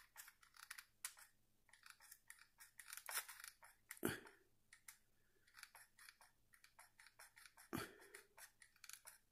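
Faint, irregular clicks and crackles of a hot glue gun and a plastic toy figure being handled as glue is put on the figure's feet, a few louder clicks about three, four and eight seconds in.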